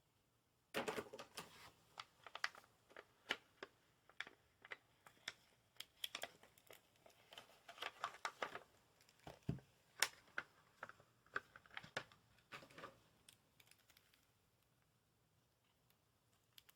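Irregular run of light clicks and taps from hands handling a deck of playing cards and its box, lasting about twelve seconds before it stops.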